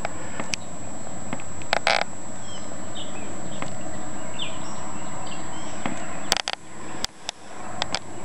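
Steady outdoor background hiss with a few faint, short bird chirps a few seconds in, then several sharp clicks and knocks near the end from the camera being handled against binoculars.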